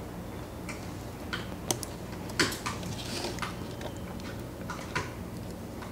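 Scattered light clicks and taps of small drone parts and tools being handled on a workbench, the sharpest about two and a half seconds in, over a steady low hum.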